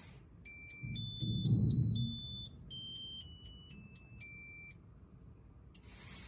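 Bittle X robot dog's onboard buzzer playing a short melody: a quick run of clean electronic beeps stepping up and down in pitch, with a low whir under the first notes and brief hiss at the start and end.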